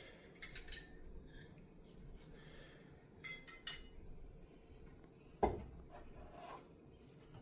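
A few light clinks and taps: two about half a second in, two more just after three seconds in, then a louder, duller knock about five and a half seconds in.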